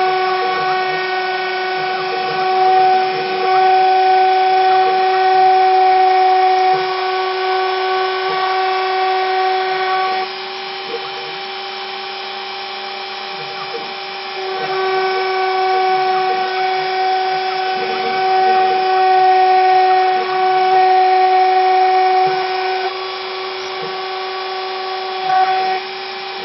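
The spindle motor of a small open-source CNC milling machine runs with a steady pitched whine while milling a circuit board. The whine drops in level about ten seconds in, comes back about four seconds later, and drops again near the end.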